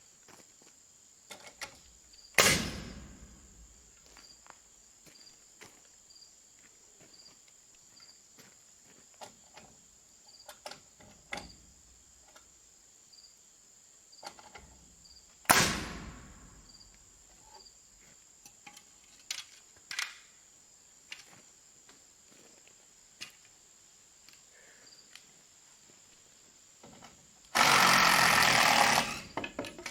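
Crickets chirping steadily. Two loud, sharp knocks with a ringing tail come about thirteen seconds apart, amid scattered light clicks. Near the end there is a loud burst of noise lasting about a second and a half.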